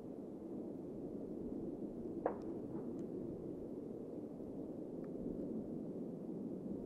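Blue Angels F/A-18 Super Hornet jets heard from afar as a steady rumble. A single sharp click comes about two seconds in.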